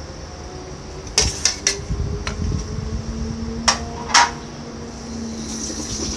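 A handful of sharp, irregularly spaced clinks and knocks of kitchen utensils and bowls being handled, about six in all, the loudest two near the middle.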